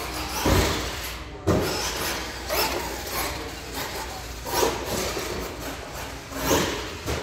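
1:10-scale solid-axle RC monster truck running on a carpeted course, with repeated surges of drivetrain and tyre noise as it accelerates, about six in all. A sharp knock about a second and a half in.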